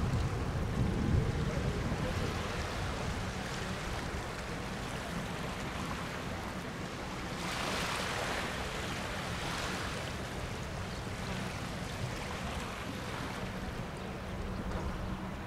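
Airbus H145 helicopter flying away into the distance, its steady hum fading over the first few seconds and lingering faintly, over a bed of wind and water noise. A louder rushing swell comes about halfway through.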